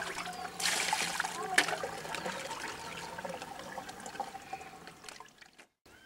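Water splashing and trickling in a concrete wash basin as hands work in it, with a louder rush of water about a second in; the sound fades out near the end.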